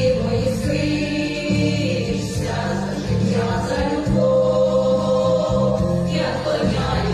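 Music of a choir singing held chords that change every second or two.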